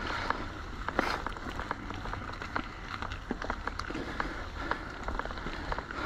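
Full-suspension mountain bike (Orbea Occam) rolling over rough trail: tyre noise and many irregular sharp clicks and rattles from the bike over a steady low rumble.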